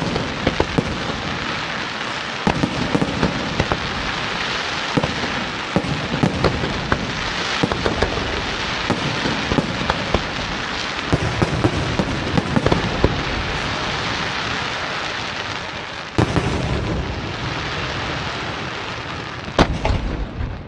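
Aerial fireworks bursting in a dense, continuous crackle, with frequent sharp bangs throughout. A heavier bang comes about sixteen seconds in and another near the end, as the barrage thins.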